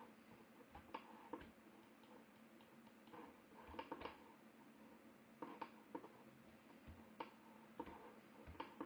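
Faint, irregular clicking of a computer mouse's buttons, about a dozen clicks spread unevenly, some in close pairs, over a low steady hum.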